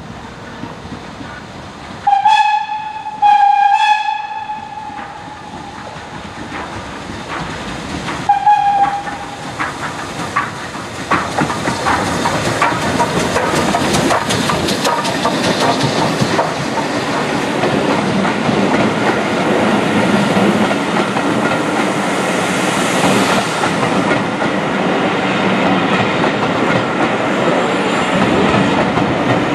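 Steam locomotive whistle sounded twice in quick succession, then a third short blast a few seconds later as the train approaches. The locomotive and its coaches then pass close by. The rumble grows and holds, and the wheels click over the rail joints.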